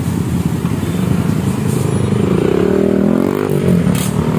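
Yamaha WR155R single-cylinder four-stroke engine running through a hollowed-out aftermarket muffler as the bike pulls away on a test ride of the reworked exhaust. The revs rise and then drop a little past halfway.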